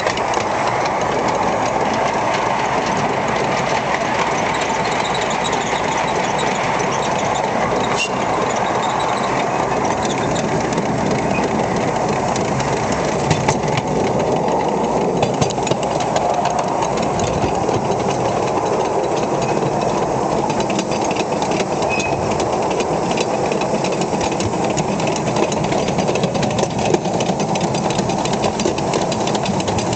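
Miniature steam locomotive running along its narrow-gauge track, heard close up from the cab: a steady, rapid clatter of its exhaust beat and wheels on the rails.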